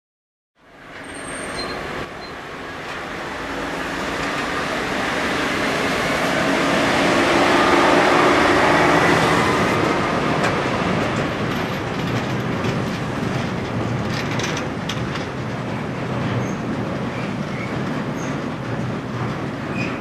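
Plasser & Theurer 08-32U multiple tie tamper travelling along the track under diesel power, its engine running steadily. It grows to its loudest about eight seconds in as it passes close over a level crossing. Some clicking from its wheels comes shortly after.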